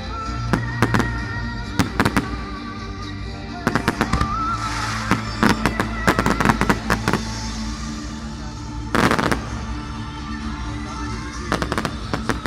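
Fireworks going off: repeated sharp bangs and crackles in clusters, with a dense crackling rattle lasting about half a second about nine seconds in. Music plays steadily underneath.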